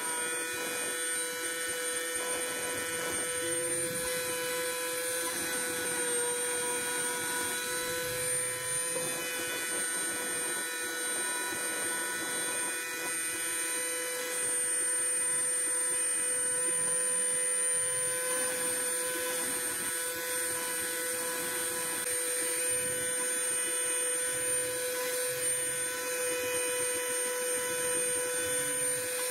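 CNC router spindle running with a steady whine while its bit carves a clear 5 mm acrylic sheet, the noise of the cut running under the whine; it gets a little louder about halfway through.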